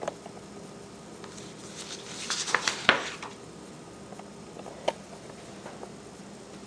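A picture book's paper page being turned and smoothed down: a second or so of rustling with a few sharp crackles, then a single soft tap a couple of seconds later.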